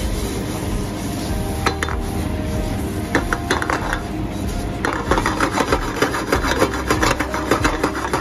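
Metal utensil clinking and scraping against a pan, with a run of quick taps in the second half.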